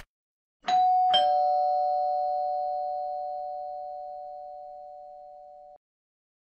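Electronic two-tone ding-dong doorbell chime: a higher note, then a lower one about half a second later. Both ring on, fading slowly for about five seconds, then cut off suddenly.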